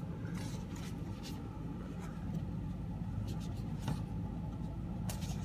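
Cardboard punch-out sheets being handled and slid over one another, giving light rubbing and a few faint taps over a steady low room hum.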